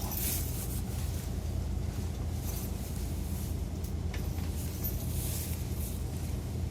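Mitsubishi Fuso Aero Midi MK bus running, heard from inside the cabin: a steady low diesel engine drone with road and wind noise over it.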